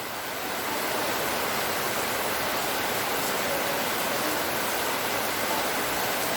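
Rain falling steadily, an even hiss that grows a little louder about a second in.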